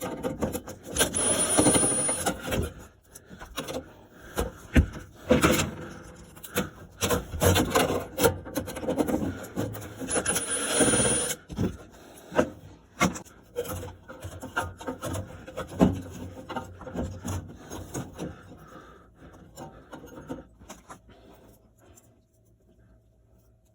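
Hands-on repair work: irregular rubbing and scraping with scattered sharp clicks and knocks, including two longer scraping stretches, dying away near the end.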